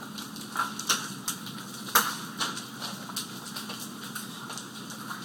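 Large hailstones, some the size of golf balls, striking the ground and hard surfaces as sharp, scattered knocks at irregular intervals, the loudest about two seconds in, over a steady faint hiss.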